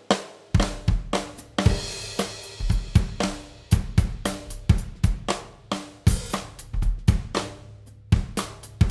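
Drum kit groove with bass drum, hi-hat and cymbals, punctuated by cross-stick hits on the snare rim. A cymbal crash rings out about two seconds in.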